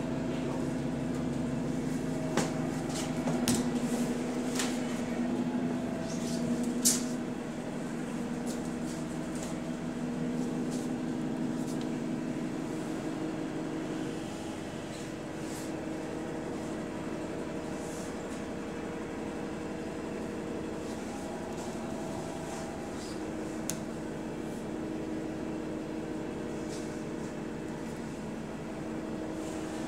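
Engine of a double-decker bus running steadily, heard from inside the passenger saloon as a constant hum of several tones. A few sharp rattles and clicks come in the first few seconds.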